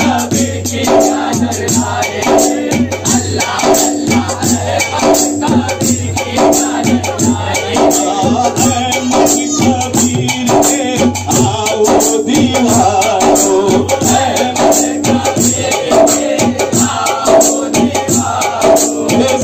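A group of men singing a devotional chant together, one lead voice on a microphone, over a fast, steady percussion beat.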